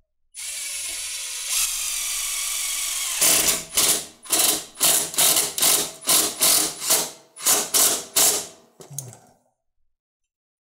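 Drill driving a self-drilling screw through a ground wire's ring terminal into the mower's steel frame: about three seconds of steady running as the screw cuts through the metal, then a run of short bursts, about two a second, as it is driven tight.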